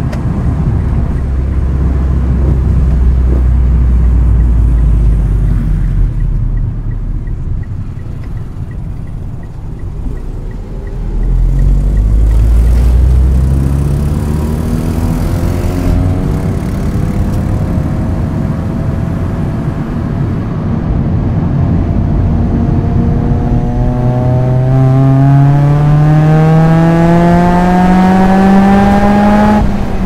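Proton Inspira's 4B10 1.8-litre MIVEC four-cylinder engine running through a Supercircuit aftermarket exhaust. It drones low and steady at light throttle for about ten seconds, then pulls harder, its pitch climbing steadily through the revs for the rest of the time.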